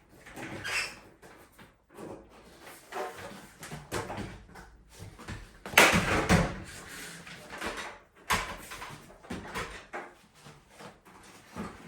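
Irregular knocks, clatter and scrapes of a bathroom door and its fittings being handled in a small tiled room, with a louder cluster of knocks about halfway through.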